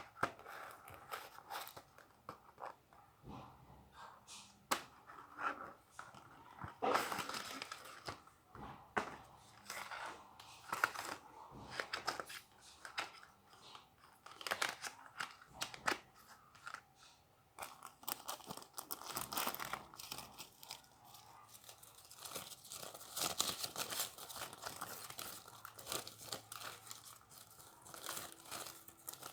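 Parcel packaging being torn open and crinkled by hand, with irregular rustling and crackling throughout that gets busier in the second half.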